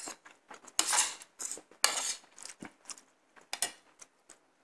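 Metal spoon and fork scraping and clinking against a ceramic plate while eating: several short scrapes, the loudest about one and two seconds in.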